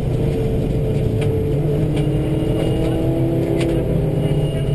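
A Subaru rally car's engine running hard at speed on a gravel road, with tyre and road rumble and a few sharp ticks of gravel. The engine pitch shifts as the revs change. Two in-car recordings of the same car are heard at once, one in each stereo channel.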